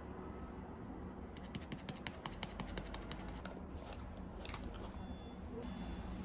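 A quick run of light clicks and rattles from small hard plastic cosmetic items being handled and picked through. It starts about a second and a half in and dies away past the middle.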